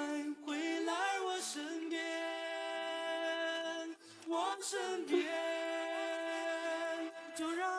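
Background music: a sung vocal line with long held notes, separated by short gliding phrases.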